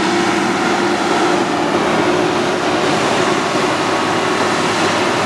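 Loaded tractor-trailer truck's diesel engine running with tyre noise, a steady drone that holds level throughout.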